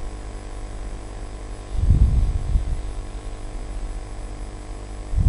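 Steady low electrical hum from the recording chain, with a short low rumble about two seconds in.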